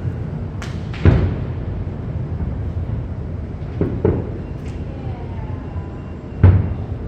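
Fireworks shells bursting: a run of booms, each trailing into a low rumble, with the loudest about a second in and again near the end, and a pair close together about four seconds in.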